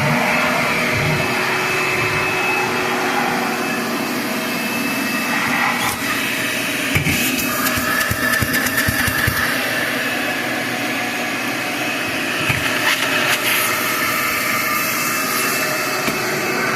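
A 16-gallon, 6.5 hp Shop-Vac wet/dry vacuum running steadily and drawing air through a 35-foot central-vacuum hose, with scattered clicks and knocks in the middle of the stretch.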